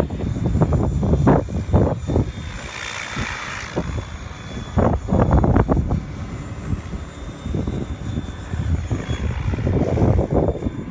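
Radio-controlled model helicopter flying aerobatic passes, its rotor and motor noise swelling as it comes near about three seconds in and then fading. Gusty wind rumble on the microphone.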